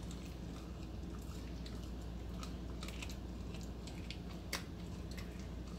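Husky puppy chewing a raw chicken neck, with irregular wet clicks and crunches of bone, one sharper crack about four and a half seconds in.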